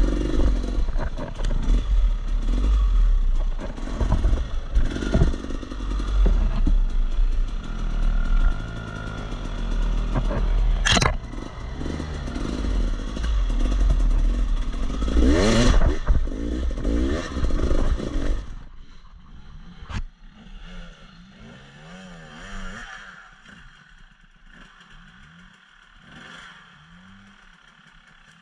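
Dirt bike engine close to the microphone, revving up and down with clatter and scraping as it rides over rough, muddy trail. About two-thirds of the way through the sound drops abruptly to a quieter, more distant dirt bike revving as it climbs.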